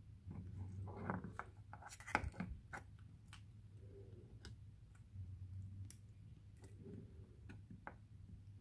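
Hands handling a raw egg and broken eggshell against a plastic snap trap: scattered small clicks, taps and crackles, with one sharper click about two seconds in, over a steady low hum.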